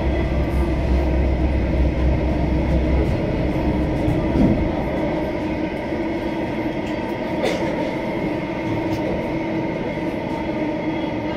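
Delhi Metro train running: a steady rumble with a few faint steady whines. The deep low rumble drops away about three seconds in, and there is a single sharp click about seven and a half seconds in.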